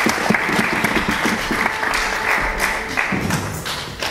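Band players applauding, the clapping thinning out and dying down near the end.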